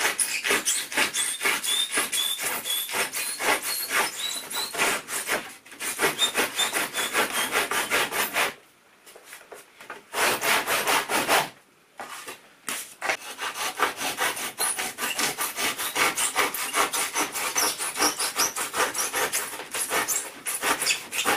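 Hand saw cutting an internal mitre through papered lightweight coving held in a timber mitre jig: quick back-and-forth strokes, with two short pauses about halfway through.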